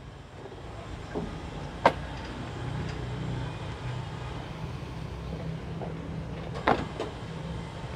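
An engine idling steadily with a low hum, broken by a few sharp clanks: a loud one about two seconds in and two close together near the end.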